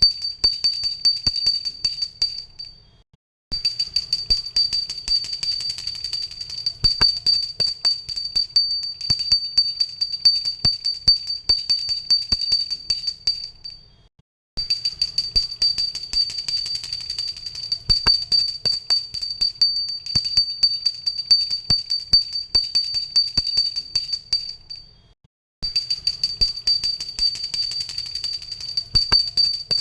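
A pooja bell, the Hindu worship hand bell, rung rapidly and without pause: a fast jangle of clapper strikes over a steady high ring. The ringing fades and stops briefly three times, about 3, 14 and 25 seconds in, then starts again at full strength.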